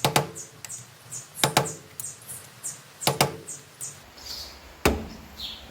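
Screwdrivers knocking against the PT Cruiser's steel rear wheel-hub dust cap while it is worked loose. There are six sharp metallic knocks, some in close pairs, each with a brief ring, and light scraping between them.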